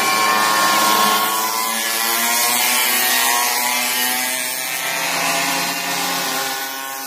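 Two-stroke pocket bike engines buzzing at high revs, several overlapping engine notes holding a fairly steady pitch and easing slightly near the end.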